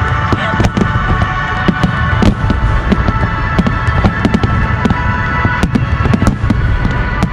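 Fireworks bursting in rapid, irregular succession, several sharp bangs a second over a continuous low rumble, with music playing along.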